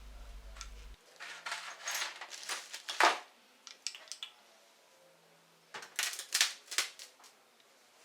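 Metal engine parts being handled and set down on a workbench: two bursts of clicking and clinking, the sharpest knock near the middle. A low hum cuts off about a second in.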